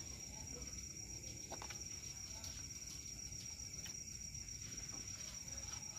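Crickets chirping in a steady, high-pitched, unbroken trill, faint.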